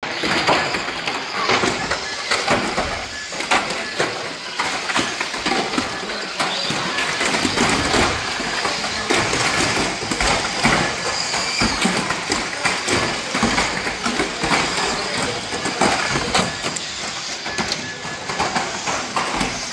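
Pack of small electric radio-controlled banger cars racing: motors whining and ABS plastic bodies clattering and knocking as they barge into each other and the track barriers, with frequent sharp knocks throughout.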